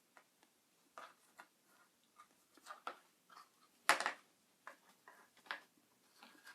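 Scattered small clicks and taps of Play-Doh tools and plastic toys being handled, irregular, with one sharper tap about four seconds in.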